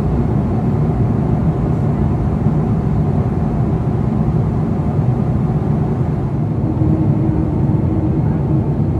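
Boeing 777-300ER cabin noise from a window seat during descent: a steady low rumble of airflow and the GE90-115B turbofans. A faint steady hum joins about two-thirds of the way in.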